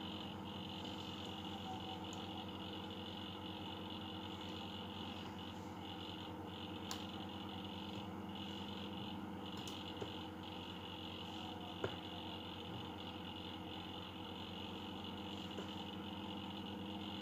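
A steady low hum made of several constant tones, with a few faint short clicks about seven, ten and twelve seconds in.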